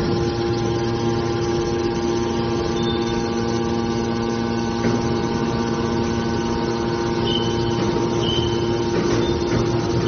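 An aluminum can baler's hydraulic power unit running, a steady hum at a constant pitch.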